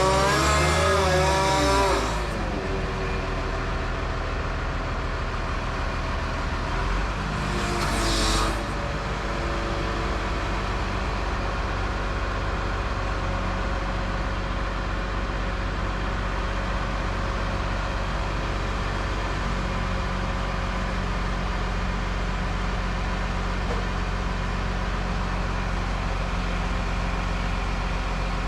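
Terex Demag AC200 all-terrain crane's diesel engine running steadily while counterweights are being fitted, with a short hiss about eight seconds in.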